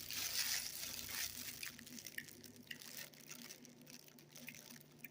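Quesadilla frying in a pan: a soft sizzling hiss that fades after about a second and a half into faint scattered crackles, over a steady low hum.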